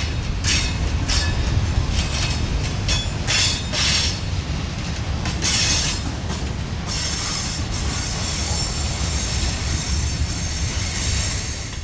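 Freight cars rolling through a curve. There is a steady low rumble of wheels on rail, with irregular clicks and clanks in the first half. From about seven seconds in comes a sustained high-pitched wheel squeal, typical of flanges grinding on curved track, as the last cars pass.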